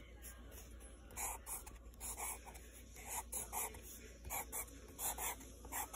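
Pencil scratching on notebook paper in short, faint drawing strokes, roughly two a second.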